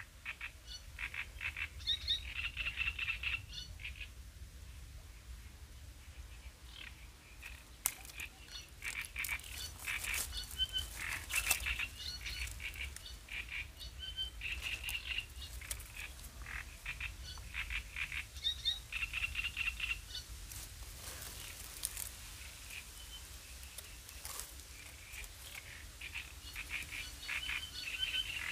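Frogs calling from the reeds in repeated bursts of rapid croaking pulses, over a low, steady wind rumble on the microphone.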